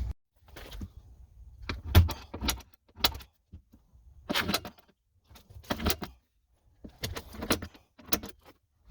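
A series of short, sharp mechanical clicks and clunks, coming in small clusters about a second apart, with near silence between them.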